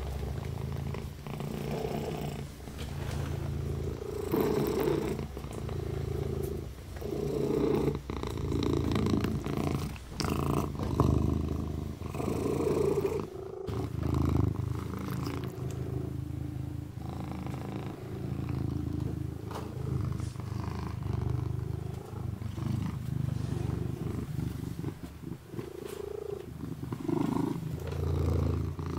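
Long-haired orange kitten purring steadily, a continuous low rumble, with irregular wet licking and smacking sounds as it washes its paw close by. The sound breaks off for a moment about halfway through.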